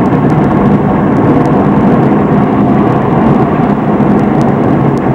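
Car being driven: steady, loud road and wind noise with no changes.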